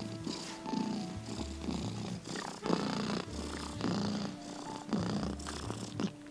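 A domestic cat purring, the purr swelling and easing in a repeating cycle with its breaths, over soft background music.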